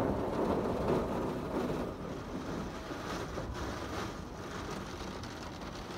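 WashTec SoftCare 2 Pro car wash machine spraying foam over the car, heard muffled from inside the cabin as a steady rushing noise that drops a little about two seconds in.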